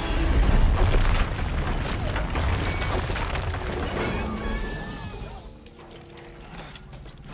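Film sound effects of a crash into a building: a deep boom and rumble with breaking and shattering debris, mixed with music. It dies away after about five seconds, leaving a few sharp clicks.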